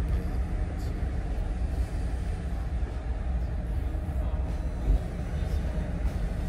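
Steady low vehicle rumble heard from inside a stopped car.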